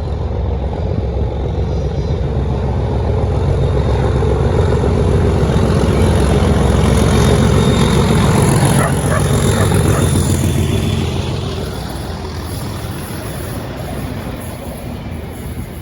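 English Electric Class 37 diesel locomotive working under power as it passes, its V12 diesel engine building to a loud peak around the middle and then fading away.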